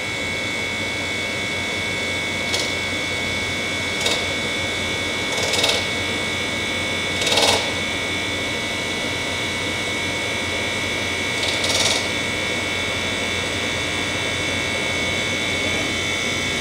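Window-type air conditioner running on test, its compressor and fan giving a steady drone with a high whine over it. Several short hissing bursts break in over the first twelve seconds.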